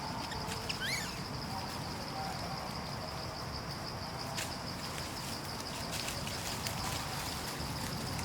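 Steady high-pitched insect drone over outdoor background noise, with a short bird chirp about a second in and a few sharp clicks later.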